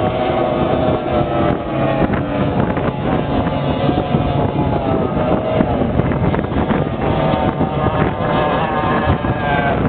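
Engines of racing powerboats running flat out across the water, a continuous engine drone made of several tones whose pitch drifts slowly as the boats pass. Wind buffets the microphone underneath.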